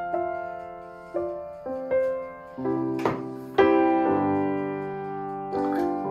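Solo piano background music: a slow piece of single notes and chords, each struck and left to ring out, a new one about every half second to second.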